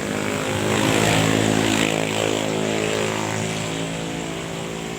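A passing engine's steady drone, loudest about a second in and then slowly fading.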